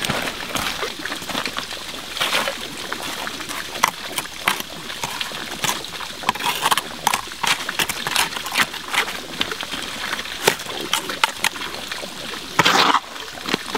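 Wet concrete being slapped down and packed into the gaps at the base of concrete blocks: irregular short wet splats and squelches, with a longer, louder splat near the end, over a steady trickle of running creek water.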